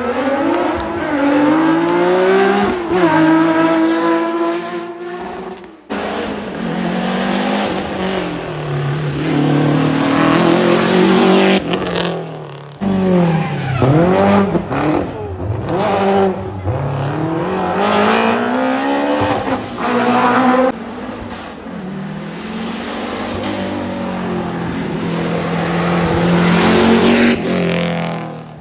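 Historic rally cars at full throttle on a special stage. The engines rev high and drop repeatedly through gear changes and lifts, with some tyre noise, in several separate passes joined by abrupt cuts.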